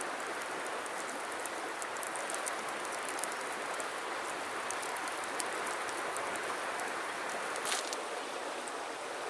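Flowing river water rushing steadily, with faint scattered ticks over it and one sharper click near the end.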